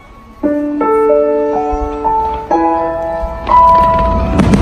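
Slow music with long held notes. About halfway in, the low booms of a fireworks display come in under it, with sharp bangs near the end.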